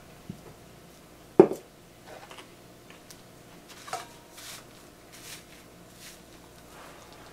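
Tableware noise while food is served: one sharp knock a little over a second in, then a metal ladle clinking and scraping in a glass baking dish.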